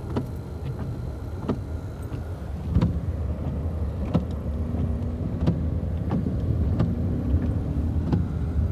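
Car driving on a wet road heard from inside the cabin: a steady low road-and-engine rumble with scattered sharp taps.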